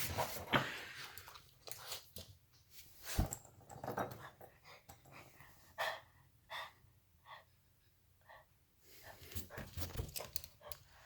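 Boston terrier panting and breathing, with scattered clicks and taps, the sharpest a little after three seconds in.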